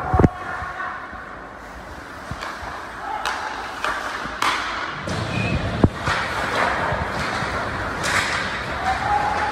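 Indoor basketball game: a ball thuds loudly on the court about a quarter second in and again near six seconds, with lighter knocks, short sneaker squeaks and players' voices echoing in a gym.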